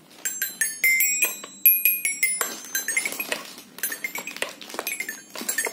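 Child's toy xylophone with five metal bars struck with a stick mallet: a quick, uneven run of bright, high ringing notes, several strikes a second.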